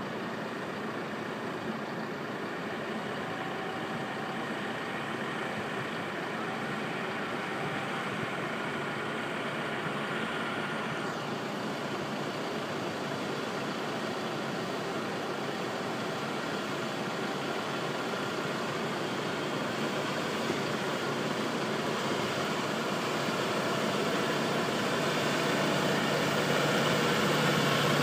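CLAAS tractor's engine running steadily while pulling a Claydon seed drill through stubble. It grows louder near the end as it comes closer, and a low hum rises out of the noise.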